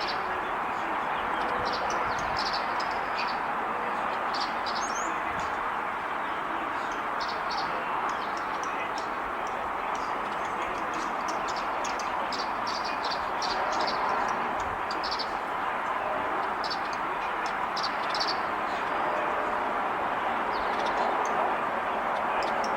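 Small songbirds giving short, high chirps and twitters, in scattered clusters throughout, over a steady background hiss.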